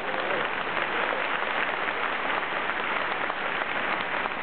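Large stadium crowd applauding, a dense, steady clatter of many hands clapping.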